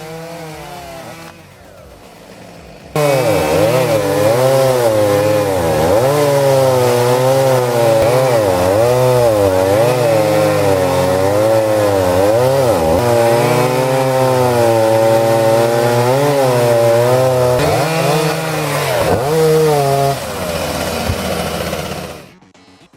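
Two-stroke chainsaw cutting wood at high revs, its engine pitch repeatedly dipping and recovering as the chain bites and frees. It is quieter for the first three seconds, jumps abruptly louder, and cuts off near the end.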